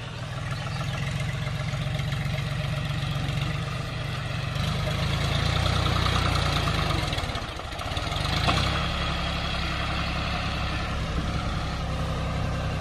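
John Deere 5039 tractor's three-cylinder diesel engine running under load as the tractor climbs a bank. The engine gets louder a few seconds in, dips briefly about halfway through, and there is a single knock just after the dip. It then runs steadily.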